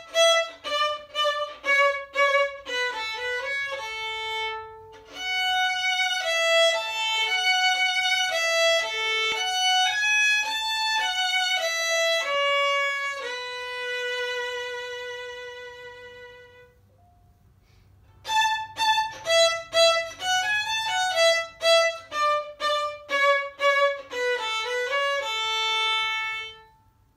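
Solo violin playing a melody in short, separate bowed notes. A long held note fades out about two-thirds of the way through, then after a brief pause the opening phrase is played again.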